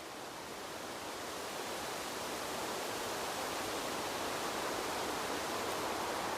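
Wind blowing as a steady, even rush that fades in and grows louder over the first few seconds.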